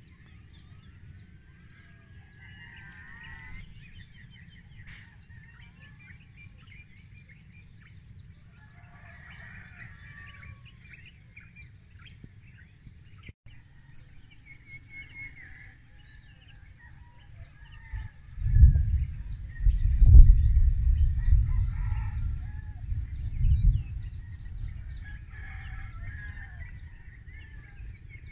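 Morning birdsong: many birds chirping and calling over a steady low rumble. From about eighteen seconds in, a much louder low rumble swells for several seconds and then fades.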